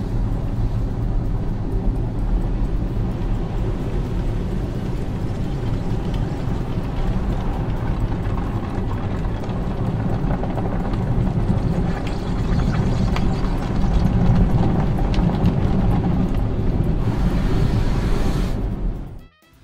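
Cartoon car-wash machinery sound effect: a steady mechanical rumbling whir as the roller brush works over the car, cutting off suddenly near the end.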